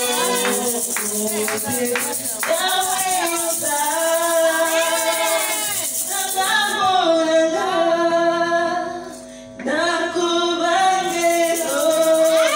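A woman singing solo through a microphone and PA, holding long notes that bend in pitch, with a break of under a second a little after the middle. A gourd rattle is shaken a few times near the start.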